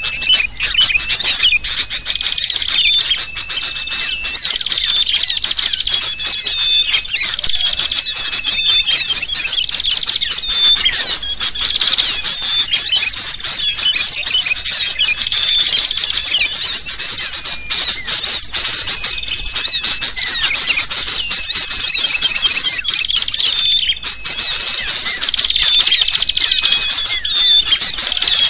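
Bird-lure recording of agitated, noisy sooty-headed bulbuls (kutilang) mixed with the chatter of small birds: a dense, loud mass of high chirps and squawks with a short level note repeating every second or two, the excited flock sound used to draw wild birds in.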